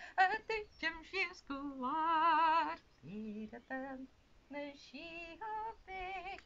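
A woman singing unaccompanied, with wavering held notes; the singing drops softer about three seconds in.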